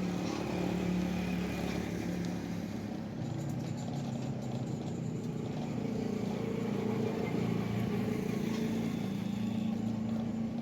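A motor or engine running steadily with a low hum, its pitch shifting slightly about three seconds in.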